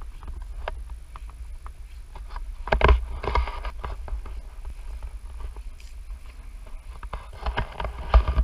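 Footsteps and rustling through dry dead stalks and cut vegetation, with louder crackling spells about three seconds in and near the end, over a steady low rumble.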